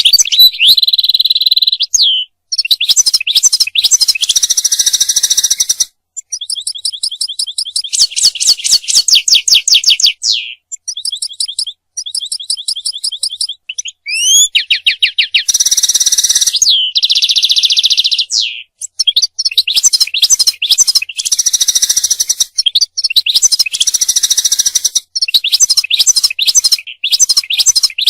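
European goldfinch singing: fast twittering phrases of rapid trills, high chirps and buzzy notes, broken by short pauses.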